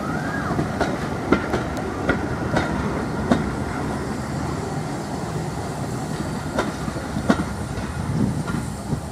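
Passenger coaches of a heritage train rolling past at low speed, close by: a steady rumble of steel wheels on rail with irregular sharp clicks as the wheels cross the rail joints.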